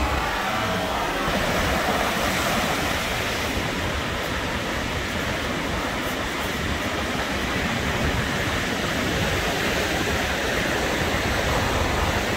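Surf breaking and washing up the beach in a steady rush, with wind rumbling on the microphone.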